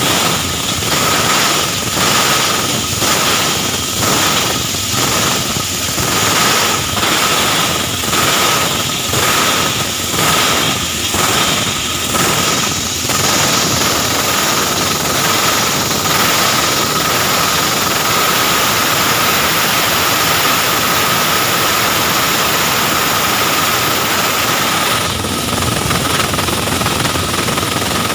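Plastic scrap grinder machine running loudly. For the first half it pulses about once a second, then it settles into an even drone with a steady high whine.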